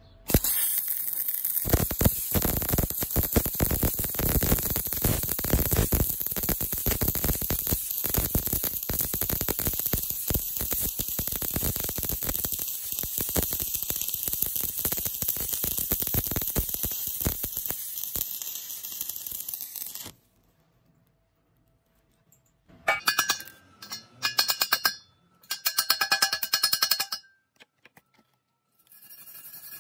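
Stick-welding arc on thin square steel tube: a steady, dense crackle and sizzle for about twenty seconds that stops abruptly. After a short silence come a few short bursts of metal scraping and ringing as the slag is cleaned off the bead.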